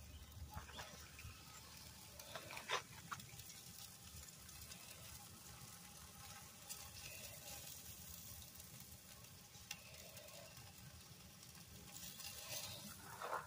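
Steaks sizzling faintly on a charcoal grill, with a few sharp clicks; the loudest is about three seconds in.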